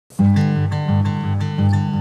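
Background music: an acoustic guitar picking a steady pattern of notes, about three a second, with low notes alternating underneath.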